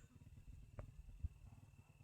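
Near silence with a faint, steady high-pitched insect drone, such as crickets. A soft click comes just under a second in, followed shortly by a single thump.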